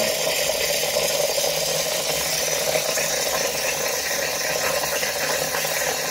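Philips Saeco Poemia espresso machine's steam wand venting steam in a loud, steady hiss, with a low machine buzz beneath, while descaling solution is flushed through the steam circuit.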